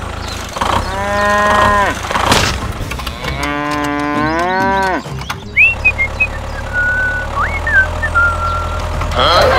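Cow mooing twice, two long calls that each fall in pitch at the end, followed by a few short high whistling notes over a steady low hum.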